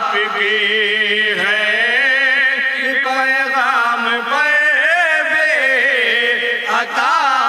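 Male voices chanting a Shia devotional lament in Urdu: wavering, gliding sung lines without clear words, over a steady held drone.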